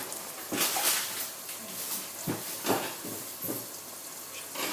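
Curry ingredients frying in a pan: a steady sizzle, with several irregular knocks and scrapes, such as a spoon stirring against the pan.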